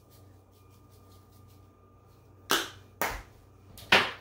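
Three sharp knocks of things being handled, about half a second and then a second apart, the last the loudest, over a faint steady hum.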